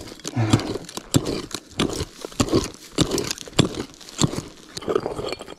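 Repeated strokes of a pointed digging tool chopping into dry, stony earth, about one or two strikes a second with gravel and soil crunching between them, while digging deeper for a buried metal-detector target.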